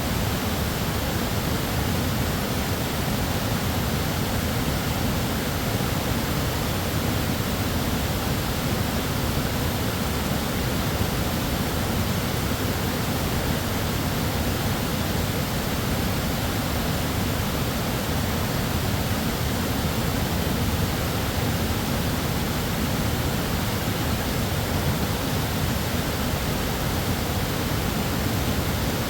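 The tiered falls of West Fork Foss: water pouring over rock in a steady, unbroken roar, deepest in the low end.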